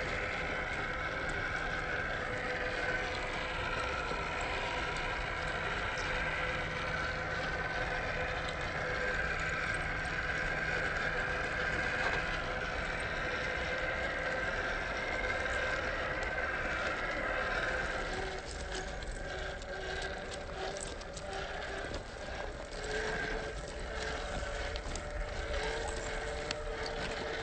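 Electric motor and gear drivetrain of a 1/10-scale Boom Racing BRX02 RC crawler whining steadily as it drives. About two-thirds of the way in the whine gets a little quieter and shifts lower, and scattered clicks join it.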